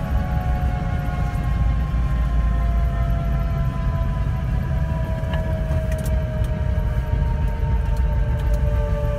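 Airbus AS350 helicopter heard from inside its cabin: a steady deep rumble of turbine and rotor, with several whining tones that slowly fall in pitch.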